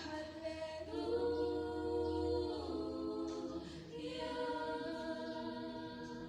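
Group of voices singing a cappella, holding long notes in harmony, a sacred song of praise.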